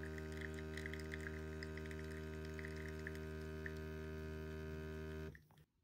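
Single-serve coffee machine's pump humming steadily while it dispenses coffee into a mug, with faint crackling of the stream and froth; the pump cuts off suddenly about five seconds in as the brew finishes.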